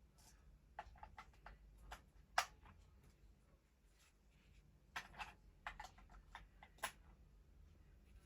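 Faint, scattered clicks and taps of a plastic toy being handled. A sharper click comes about two and a half seconds in, a cluster follows around five seconds, and another sharp click comes near seven seconds.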